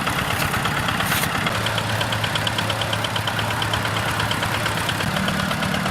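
An engine running steadily at constant speed, with a fast, even ticking. A steady hum steps up in pitch about five seconds in.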